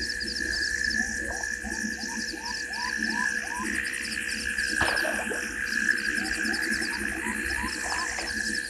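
Night bush chorus: a steady insect drone with fast, high cricket trilling, and two runs of short calls, each note sweeping upward in pitch, about three a second. A single sharp knock comes about halfway through.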